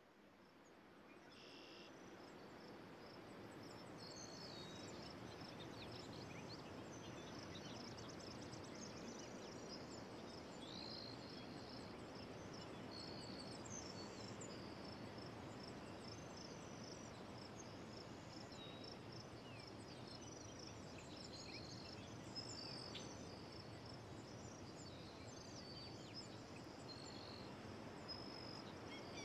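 Faint outdoor nature ambience fading in over the first few seconds: many small birds chirping and calling over a steady hiss of insects and open air.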